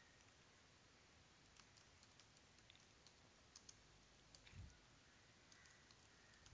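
Faint, sparse computer keyboard keystrokes: scattered single clicks, with a soft low thump about four and a half seconds in.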